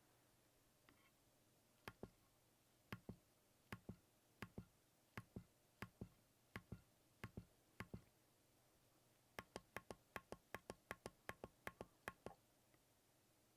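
Keystrokes on a Keychron Q0 Plus mechanical numpad with Gateron G Pro brown switches. Nine single presses about three-quarters of a second apart, each a clack down and a clack back up, are followed by a quicker run of about fourteen keystrokes.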